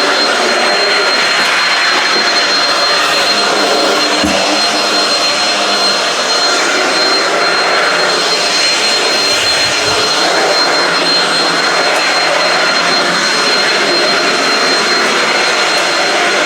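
Shark Rocket stick vacuum with DuoClean running steadily while vacuuming, its motor giving a constant high whine over the airflow noise. A brief low bump comes about four seconds in and another around ten seconds.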